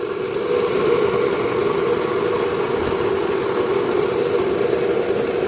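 Prestige electric kettle heating water towards the boil, a steady sound as bubbles form. The repaired heating element is working again.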